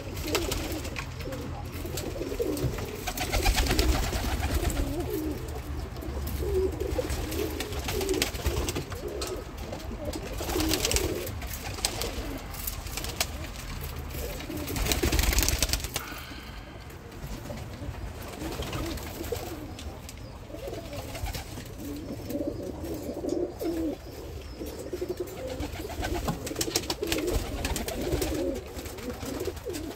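Domestic pigeons cooing: a steady, wavering low cooing runs on, with a few louder rushes of noise about four, eleven and fifteen seconds in.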